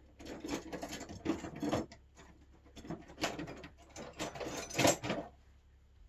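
Hands rummaging among small bike parts and packaging: irregular rattling and rustling in several spells, stopping about five seconds in.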